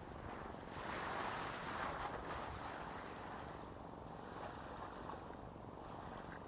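Seawater washing and splashing against a concrete seawall, mixed with wind on the microphone. The sound swells about a second in, then eases.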